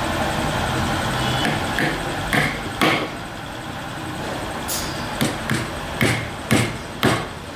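Sharp hammer knocks, struck through a wooden block, tapping black end caps onto the legs of a steel-pipe chair frame: about eight uneven blows from about two seconds in, coming about every half second near the end. A steady low hum runs underneath.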